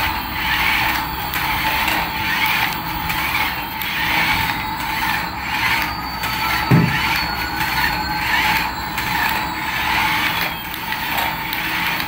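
Battery-powered toy airliner's gear motor running as it drives itself across a tile floor, a steady whir with a rhythmic ratcheting clatter pulsing about once or twice a second. A single thump comes about seven seconds in.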